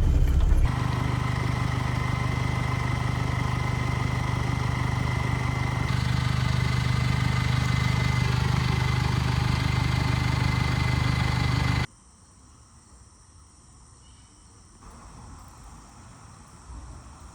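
Mazda BT-50 turbo-diesel ute driving, a steady low drone of engine and road noise with a thin steady whine above it, rising slightly about six seconds in. About twelve seconds in it cuts off suddenly to a quiet outdoor background with faint insect sounds.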